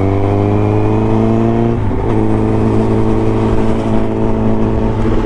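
Honda CBR Fireblade's inline four-cylinder engine accelerating under the rider. The pitch climbs, breaks briefly about two seconds in at a gear change, then pulls on steadily.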